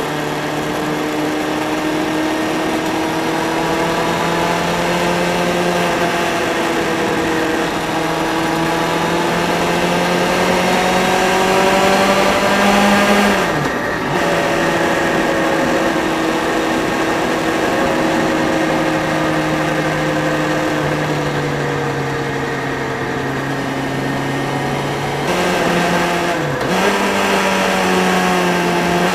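Motorbike engine running under way, heard from the rider's seat over a steady rush of wind and road noise. Its pitch climbs slowly with speed, dips sharply as the throttle is briefly closed about halfway through and again near the end, then picks up.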